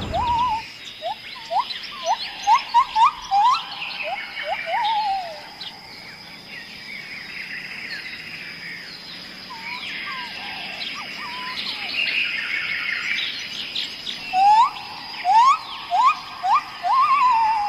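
Birds singing in woodland. One bird gives bouts of short, quick upslurred whistles, one at the start and another near the end, over a busy background of higher chirps and twitters from other birds and a steady high-pitched tone.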